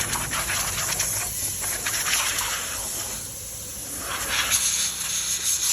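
Hissing spray that swells and fades, weakest in the middle, over a faint low hum.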